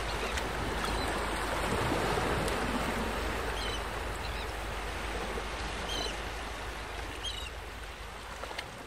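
Sea waves washing on a shore, a steady rushing noise, with a few short high chirps over it; it fades out near the end.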